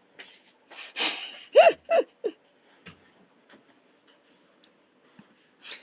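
A person's breathy exhale, followed by two short wordless vocal sounds that rise and fall in pitch, like a hum or a soft laugh. Faint scattered clicks follow.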